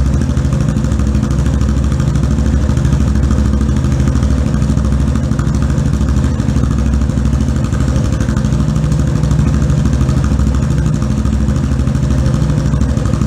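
Yamaha Fazer 250's single-cylinder four-stroke engine idling steadily through an aftermarket Jeskap sport exhaust.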